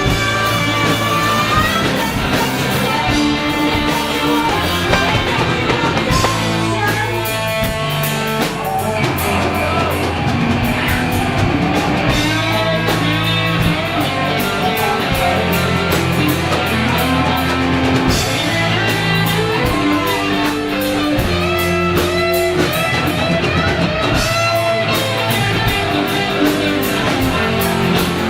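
Live band playing a funky rock song: electric guitar, bass and drum kit with cymbals.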